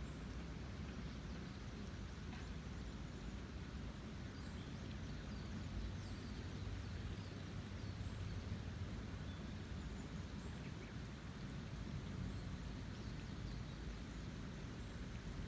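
A river running high with rainy-season water, a steady low rush of flowing water.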